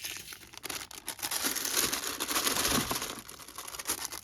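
Thin plastic bag crinkling as it is cut open and handled, a dense run of rustling crackles that thins out near the end.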